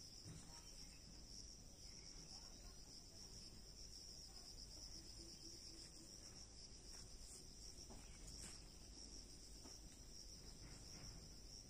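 Faint, steady, high-pitched chirring of insects in the surrounding vegetation, continuous throughout, with a few soft clicks near the middle.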